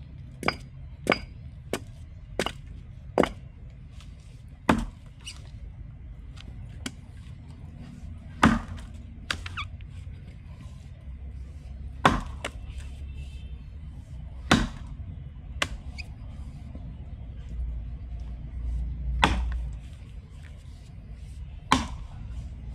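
Felling axe chopping into wood: a quick run of five sharp blows in the first three seconds, then slower, irregular strikes every few seconds.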